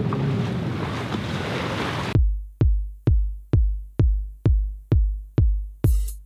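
Wind noise and sea sounds aboard a sailboat for about two seconds. Then electronic dance music cuts in abruptly with a heavy kick drum a little over twice a second, and a hi-hat joins near the end.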